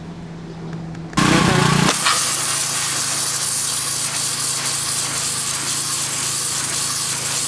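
Pressure washer spraying a jet of water onto a fossil rock to strip off sediment and algae: a faint steady hum, then about a second in the spray starts suddenly as a loud, even hiss, with a brief heavier low burst as it kicks in and a steady pump hum under the hiss.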